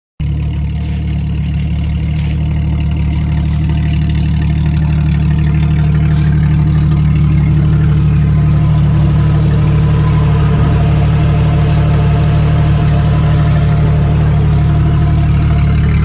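Jeep Cherokee engine idling steadily, cutting in abruptly at the start and growing slightly louder over the first few seconds.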